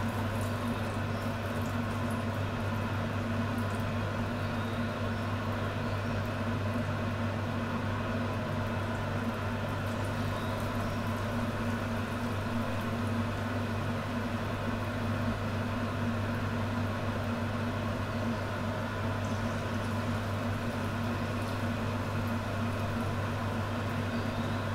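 Battered rice balls deep-frying in hot oil in a pan, a steady sizzle and bubbling over a steady low hum.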